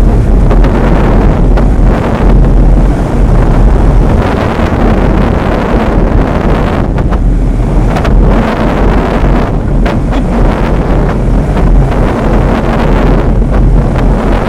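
Loud, steady wind noise buffeting the microphone, a dull low rumble with a rushing hiss over it.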